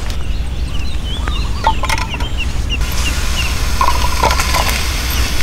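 Mushrooms and cherry tomatoes dropped into a clay pan over embers, landing in a few soft clicks around two and four seconds in, with many short bird chirps and a steady low rumble behind.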